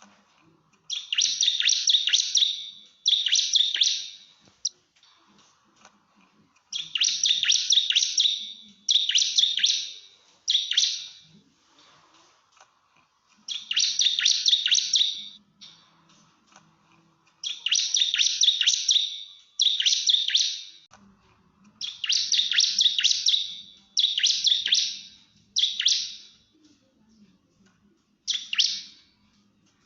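Bar-winged prinia (ciblek) singing in its rapid-fire 'nembak' style: about a dozen bursts of fast, high chattering notes, each a second or two long, separated by short pauses. This is a territorial challenge song, used to provoke rival males.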